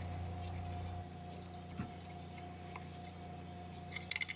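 Steady low hum with a couple of faint light clicks, then small metal engine parts clinking near the end as the engine is taken apart.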